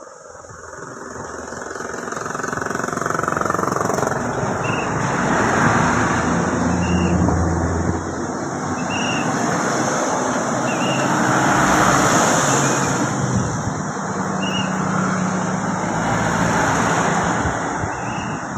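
Road traffic passing close by: three vehicles go past in turn, each rising and fading away, with a low engine drone under the passes.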